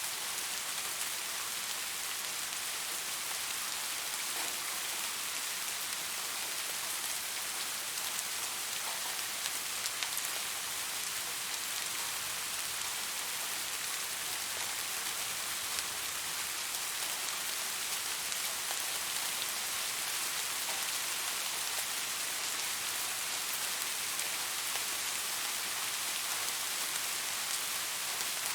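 Steady rain falling on a surface: an even hiss with many small drop ticks.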